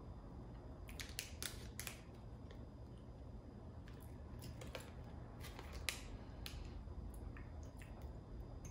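Faint, scattered crinkles and clicks of a plastic snack wrapper being handled, in a few short clusters.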